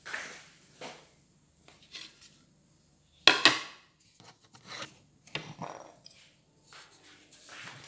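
Scattered knocks, taps and rustling from things being handled on a table close to the microphone, with one loud double knock about three seconds in.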